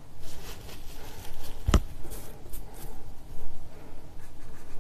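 Oil-paint brush strokes scratching and dabbing on a canvas, with a single sharp knock a little under two seconds in.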